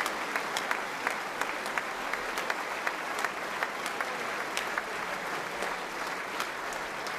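A large audience applauding steadily, with many individual hand claps standing out.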